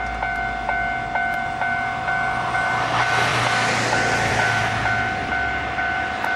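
Kotoden Shido Line electric train running, with noise that swells about midway. Over it a ringing signal repeats steadily about twice a second.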